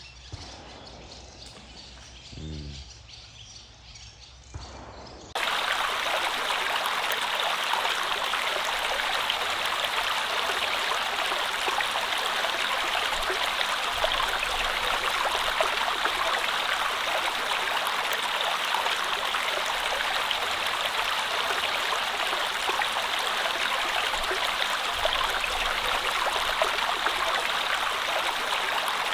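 Steady rush of flowing stream water that starts abruptly about five seconds in; before it there is only a quiet background with a brief faint voice.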